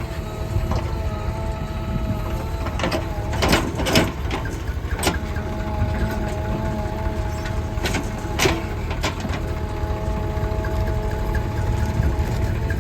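JCB 3DX backhoe loader's diesel engine running under load with a steady whine, broken by sharp clanks and knocks of the bucket against stones, a cluster about three to five seconds in and two more near eight and nine seconds.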